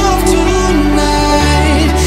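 Background music: a song with sustained bass notes and a melody above them; the bass shifts to a new note about one and a half seconds in.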